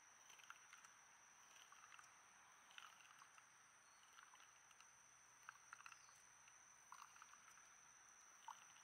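Near silence: faint outdoor ambience with a steady high-pitched whine and scattered faint ticks.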